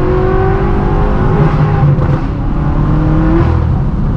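Straight-piped exhaust of a tuned twin-turbo V8 BMW M6 Gran Coupe pulling hard under full acceleration. The engine note rises as the revs climb, breaks about a second and a half in, and climbs again until near the end.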